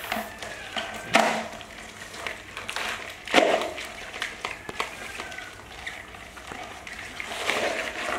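A red plastic basin knocked and scraped about on a foam mat as it is handled and tipped, with a few sharp knocks, the loudest about a second in and about three and a half seconds in.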